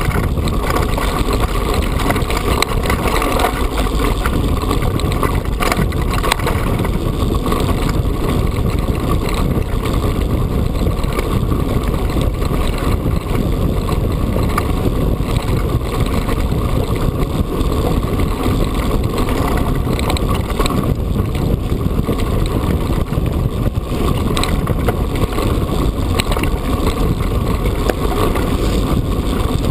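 Mountain bike rolling steadily over a rough, stony track: a constant loud rumble and rattle of tyres on loose stones and the bike shaking, mixed with wind on the microphone.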